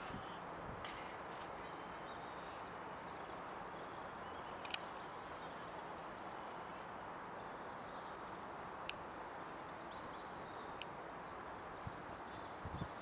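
Outdoor ambience: a steady wash of distant background noise with faint bird chirps, a few sharp clicks, and some soft low bumps near the end.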